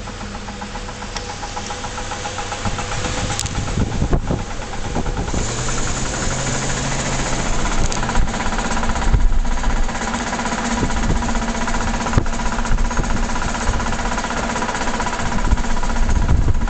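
Humming, whirring drivetrain noise from a 1996 Range Rover P38 under way, the tone climbing in pitch and getting louder as the vehicle gains speed. It follows road speed rather than engine revs; the owner thinks it comes from the rear differential, possibly damaged ring and pinion teeth, or could be the viscous coupling.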